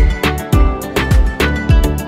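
Background music with a steady beat: a deep kick drum nearly twice a second, with sharp hi-hat-like ticks between the kicks.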